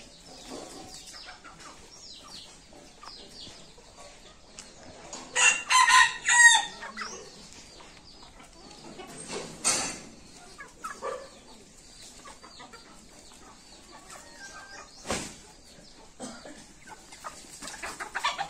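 Roosters and hens clucking throughout, with one rooster crowing loudly in several parts about five seconds in. A shorter call comes near ten seconds, and there is a single sharp click about fifteen seconds in.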